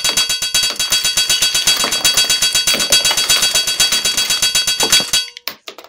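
Rapid, evenly spaced metal hammer strikes with a ringing tone, like a smith's hammer on an anvil, running fast and stopping about five seconds in, then a few scattered last strikes.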